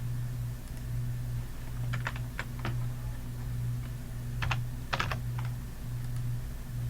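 Computer keys clicked in two short groups of about three clicks each, over a steady low electrical hum.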